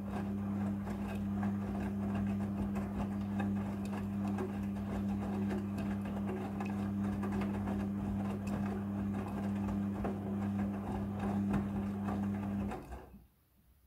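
Midea front-loading washing machine running with a steady low hum and a light rattle over it, then cutting off suddenly near the end.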